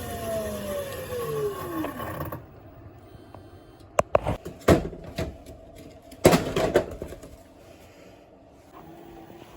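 Panasonic drum-type washing machine's drum coasting down out of a spin, its motor whine falling steadily in pitch for about two seconds before cutting off. Then come several loud clunks and knocks, in two clusters.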